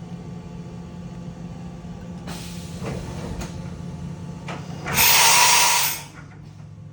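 Mazak VCN 510C-HS machining center's automatic tool changer swapping in a tool over a steady machine hum: a stretch of mechanical movement with a few clicks and clunks, then a loud hiss of air lasting about a second, about five seconds in.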